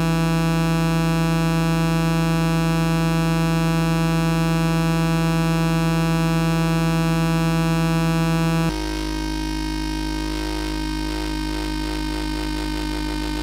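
Flight of Harmony Infernal Noise Machine desktop analog synthesizer holding a steady, layered drone of several sustained tones. About nine seconds in, the drone's tone changes abruptly and it gets a little quieter.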